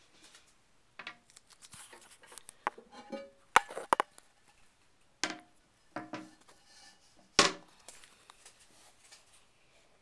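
Porcelain toilet tank lid of an Eljer Emblem toilet being handled: a string of sharp knocks and clinks, some with a brief ring, the loudest about three and a half and seven and a half seconds in.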